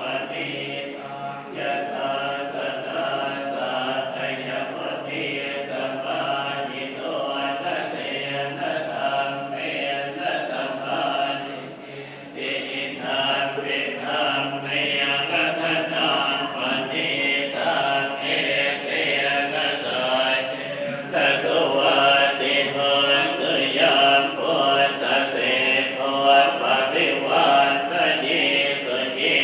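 Buddhist monks chanting Pali verses in unison, a steady low chorus of voices that carries on without a break apart from a short pause about twelve seconds in.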